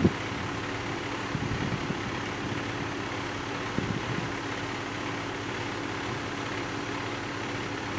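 Engine of an idling emergency vehicle, a steady even hum with a faint steady tone running under it.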